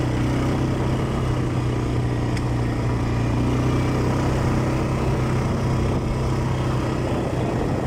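Quad bike engine running at a steady, unchanging pitch while being ridden.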